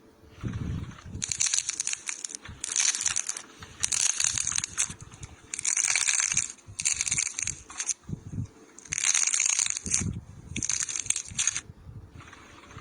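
A run of about eight crunching, crackling bursts, each lasting under a second to a second with short gaps between, from something being crushed or worked by hand to make loud ASMR cracking sounds. A few duller thumps come in near the start and later on.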